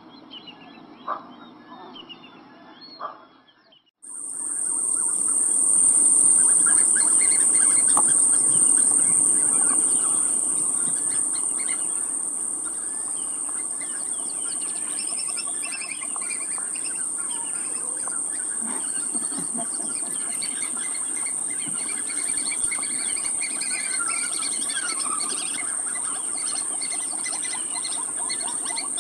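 Small fish thrashing and splashing in a net in shallow pond water, with birds chirping. After a brief dropout about four seconds in, a loud steady high-pitched hiss comes in and runs on over the splashing.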